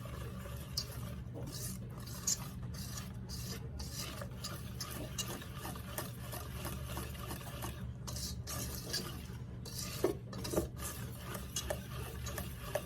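Utensil scraping and stirring around a mixing bowl as the pecan pie filling of corn syrup, butter and eggs is mixed, in a run of quick irregular strokes.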